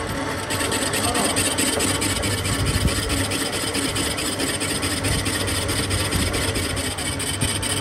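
Metal lathe turning a metal rotor hub blank for a chaff cutter: the machine hums steadily while the cutting tool scrapes across the spinning workpiece, with a rapid, even ticking. The cutting noise grows louder about half a second in.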